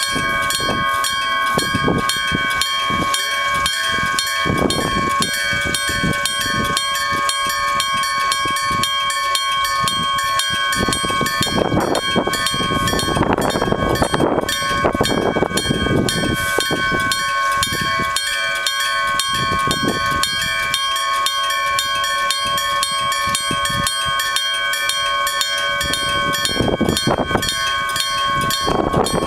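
Gong-type electric-bell level crossing warning bell ringing continuously with rapid, even metallic strikes. About halfway through, a train rumbles past the crossing.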